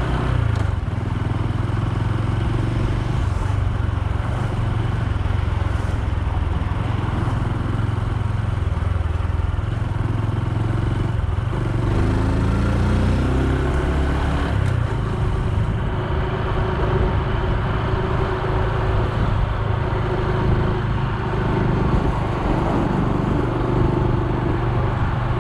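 Honda Super Cub C125's single-cylinder four-stroke engine running under way, with road and wind noise. The engine note rises and falls for a few seconds about halfway through as the speed changes.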